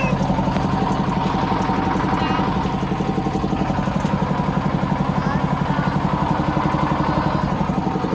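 Motorboat engine running steadily with a fast, even chugging pulse.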